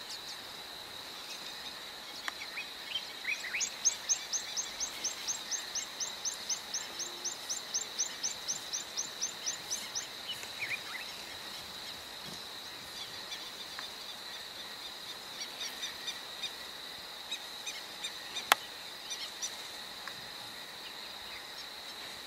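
Outdoor bush ambience: a steady high-pitched insect drone throughout, with a bird calling a fast run of repeated high notes, about four a second, from about three seconds in to about ten seconds in, and scattered chirps later. A single sharp click about eighteen seconds in.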